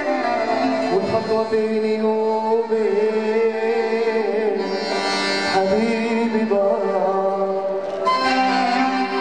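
Live Egyptian orchestra playing belly-dance music: a wavering melody line over goblet hand drums (darbuka) and frame drums.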